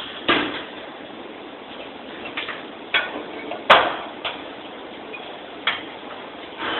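Steady hiss with about six sharp clicks and knocks scattered through it, the loudest a little past halfway.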